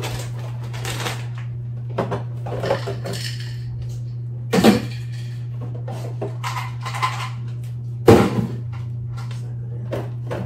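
Groceries being put away in an open refrigerator: plastic tubs and packages set onto the shelves with clinks, knocks and rustling, two louder knocks about halfway through and near the end. A steady low hum runs underneath.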